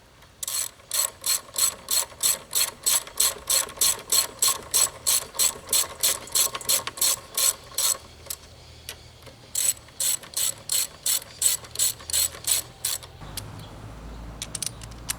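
Ratcheting hand wrench clicking in a fast, even rhythm of about four clicks a second, stopping about eight seconds in and starting again briefly. A low steady hum comes in near the end.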